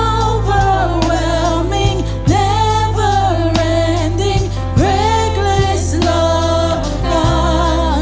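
Worship song sung with live band accompaniment: voices sing a slow melody over sustained keyboard and bass.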